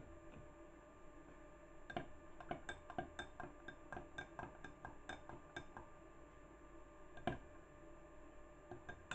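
A utensil clinking against glassware: an irregular run of light taps with a brief ring, about two or three a second, starting about two seconds in. One louder clink comes near the end.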